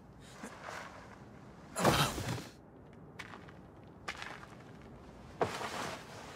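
Two short whooshing swishes, the louder about two seconds in and another near the end, with a few faint clicks between them.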